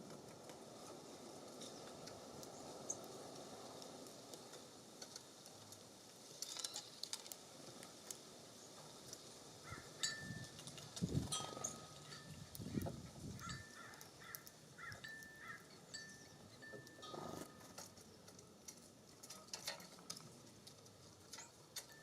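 Small birds at a seed feeder: sharp pecking and tapping clicks, and a run of short, flat, repeated call notes in the middle, with a few soft knocks. Breeze rustles early on.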